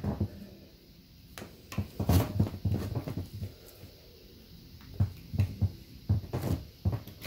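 Rubber seal plug being worked out of the tailshaft housing of a Tremec TKO 600 transmission with hands and needle-nose pliers: irregular clicks, taps and scrapes of handling, in two short clusters.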